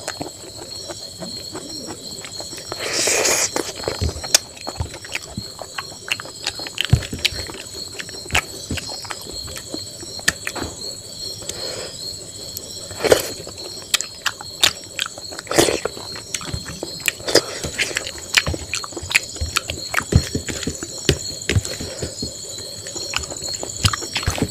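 Close-up hand-eating sounds: irregular wet clicks and smacks of chewing, and fingers squishing and scraping rice and greens on a steel plate, with a louder rustling burst about three seconds in. Under it runs a steady, high insect chirring.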